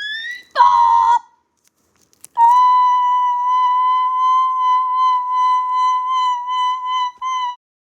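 Emergency Alert System alarm tone: two short tone bursts, then one steady high tone held for about five seconds before cutting off abruptly.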